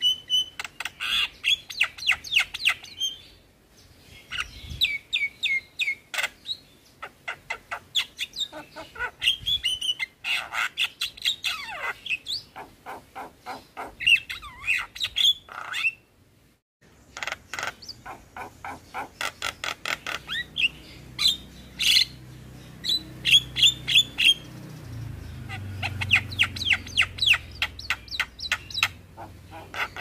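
Javan myna singing hard: rapid runs of clicks and chatter mixed with whistled notes, in bouts, broken by a short silent gap about halfway through.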